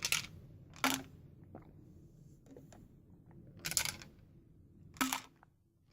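Four short gulping and breathing sounds, one of them longer, as a protein shake is drunk from a shaker bottle.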